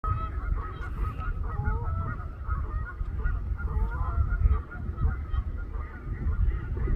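Several trumpeter swans honking: many short calls overlapping in quick succession, a few sliding in pitch, over a steady low rumble.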